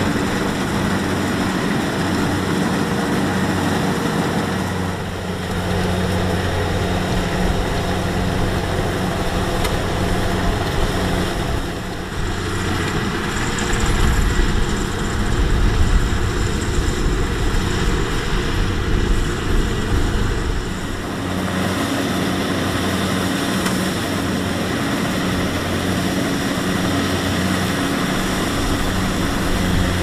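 Kubota DC-70 rice combine harvester running steadily with its diesel engine's low hum. From about 12 to 21 seconds a deeper, uneven rumble comes in and it briefly gets a little louder.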